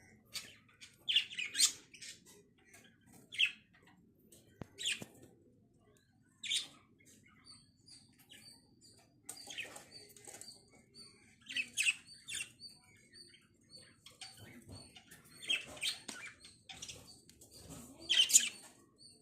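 Pet lovebirds calling: short, sharp chirps every second or two, some in quick pairs.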